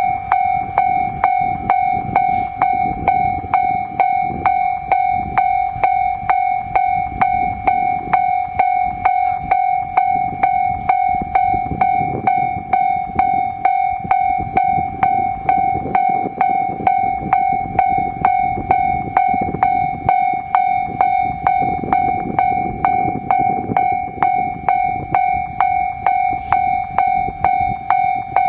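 Japanese railway level crossing alarm bell ringing steadily, a clanging tone repeating about twice a second, over a low rumble.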